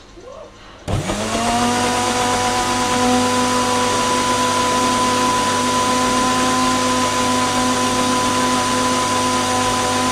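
Countertop blender switching on about a second in, its motor spinning up quickly and then running steadily with a high whine as it blends a liquid mixture.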